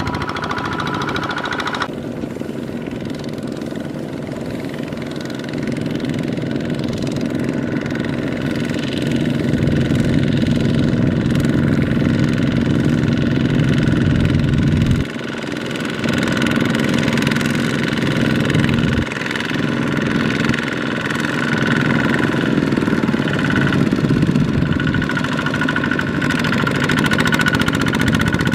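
Kubota ZT155 single-cylinder diesel engines of two-wheel walking tractors running steadily under load as they pull loaded trailers through mud. The sound changes abruptly three times where the shot cuts.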